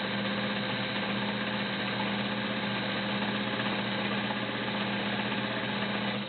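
Kenmore Model 84 all-metal sewing machine, a 1.2 amp motor, running steadily at speed while sewing a cam pattern stitch; it stops suddenly at the very end.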